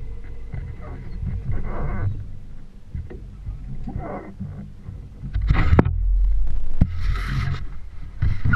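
Wind buffeting the microphone of a small boat under way: a loud low rumble, with four short gusty rushes of wind and water noise. The outboard motor runs beneath it.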